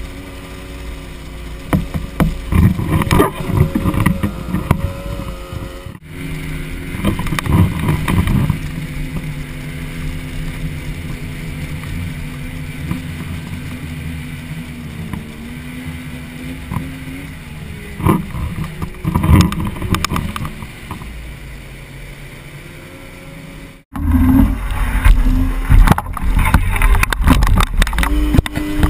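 Outboard motor running on a flat-bottom tunnel-hull boat, a steady engine tone with spray and rushing water against the hull and wind on the microphone. The engine pitch dips and comes back up partway through. Near the end the boat is at speed and the rush of wind and water grows much louder.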